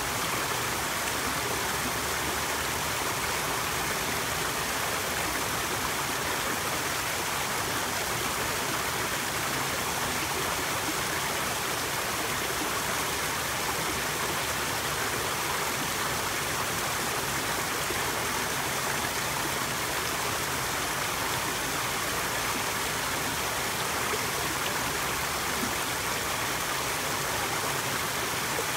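Small waterfall splashing steadily over stone ledges into a pool: an even, unbroken rush of falling water.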